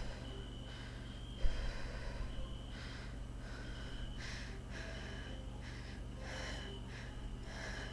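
A person breathing close by in noisy puffs, over a steady low hum, with one sharp click about one and a half seconds in.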